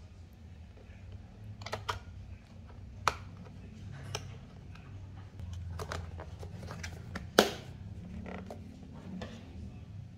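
Hard plastic clacks and knocks as a food tray is set into a self-heating hotpot's plastic bowl and the lid is pressed on, with one sharp snap about seven seconds in, the loudest, over a low steady hum.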